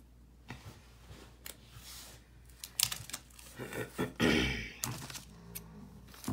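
Scattered light clicks and taps of paper and craft tools being handled on a tabletop, with a louder scrape about four seconds in.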